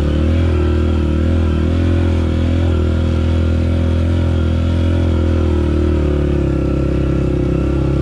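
Dirt bike engine running steadily at an even, nearly constant speed.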